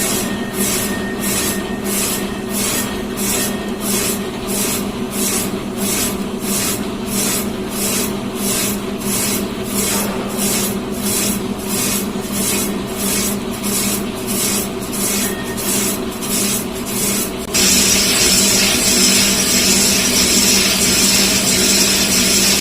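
CNC boring lathe machining: a steady hum under a rhythmic scraping about twice a second. About seventeen seconds in, the scraping gives way to a louder, continuous high hiss.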